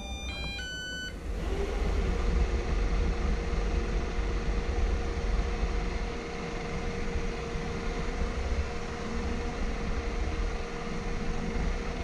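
iBoto Aqua V710 robot vacuum running across a parquet floor: a steady hum from its suction fan and brushes over a low rumble, as it seeks its charging base.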